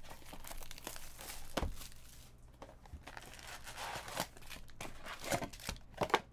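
Cellophane wrap being torn and crinkled off a sealed trading-card box, with a few sharp knocks as the cardboard box and foil packs are handled.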